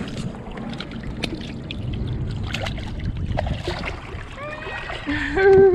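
Water splashing and sloshing in the shallows as a hooked sheepshead thrashes at the surface and is lifted out, with scattered small clicks and knocks. Near the end there is a short, louder held voice-like tone that steps in pitch.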